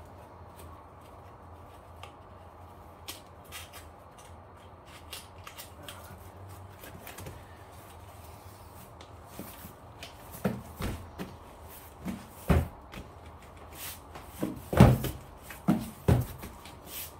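Cardboard shipping box being closed by hand: faint scattered taps at first, then from about ten seconds in a run of sharp thumps and knocks as the lid is folded down and its locking tabs are pressed into place.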